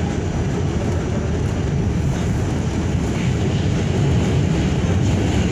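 An R46 subway car running, heard from inside the car: a steady rumble of the train on the rails, getting slightly louder about four seconds in.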